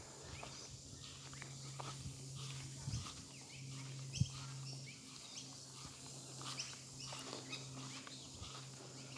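Faint, scattered bird chirps over a low, steady hum, with a single sharp knock about four seconds in.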